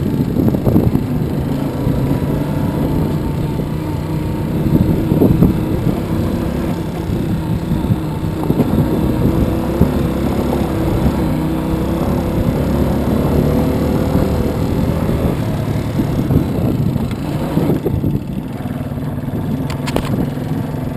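Small dirt bike's engine running at low, fairly steady revs while riding a rough grass track, heard from the rider's seat, its pitch drifting a little up and down with the throttle.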